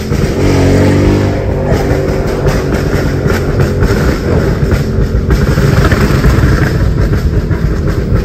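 Ford Mustang's exhaust, heard loud from inside the cabin: the engine note climbs about half a second in and then runs on as a rough, heavy rumble under throttle while the car drives.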